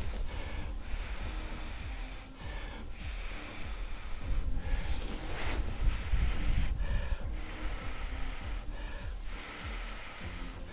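A man blowing into a dry-grass tinder bundle to coax a bow-drill ember into flame: several long hissing blows with short pauses between them for breath. Heavy wind rumble on the microphone runs underneath.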